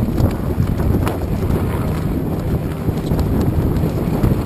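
Wind buffeting the camera's microphone: a steady, heavy low rumble, with a faint click about a second in.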